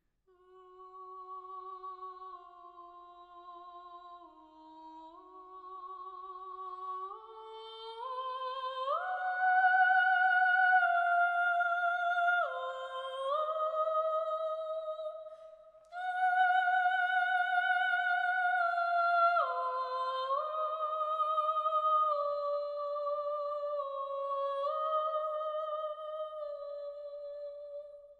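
A single high soprano voice, unaccompanied, sings a slow wordless melody with vibrato. It climbs step by step over the first nine seconds, then moves in longer held notes with slides between them, and fades out at the end.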